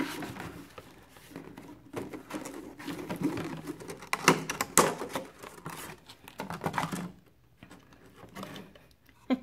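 Cardboard and clear plastic packaging being handled: a box of plastic wine glasses slid out of its cardboard sleeve and its plastic tray crinkling and clicking under the fingers. The handling gets quieter for the last couple of seconds.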